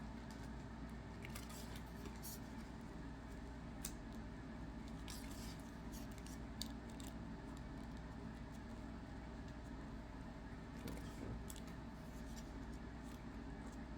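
Trading cards being handled and sorted: faint scattered clicks and rustles of cards against one another, over a steady low hum.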